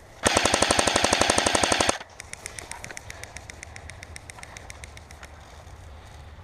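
Airsoft electric gun firing a loud full-auto burst of rapid, evenly spaced shots for about a second and a half. A fainter string of airsoft shots follows for about three seconds.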